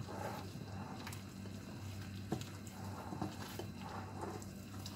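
Soft squishing and patting of a gloved hand mixing shaggy pizza dough in a bowl, with one light tick about two seconds in, over a steady low hum.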